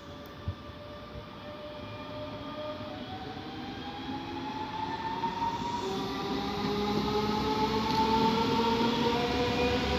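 Red S-Bahn electric multiple unit pulling away and accelerating along the platform, its traction motors whining and climbing in pitch as it draws closer and grows louder over a rising rumble of wheels on rail.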